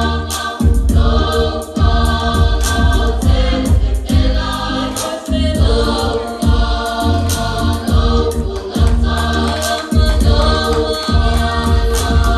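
A group of voices singing a gospel marching song together over a backing with a strong, regular bass beat.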